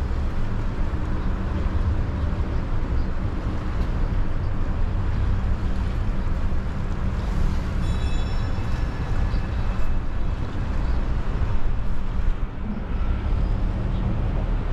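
Steady engine drone and rolling road noise, heard aboard a sightseeing road train on the move. About eight seconds in comes a brief high ringing tone lasting a second or so.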